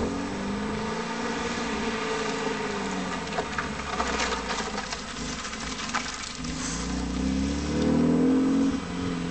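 MGB roadster's four-cylinder engine revving up and easing off over and over as the car is driven hard between cones, with a strong rising rev near the end.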